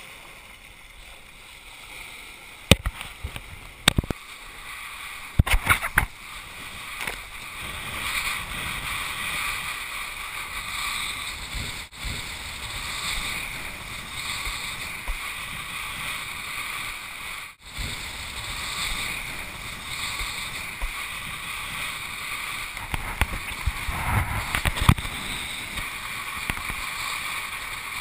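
Kiteboard skimming fast over the water: steady rushing water and spray. Several sharp knocks and splashes come in the first six seconds and again about 24 seconds in.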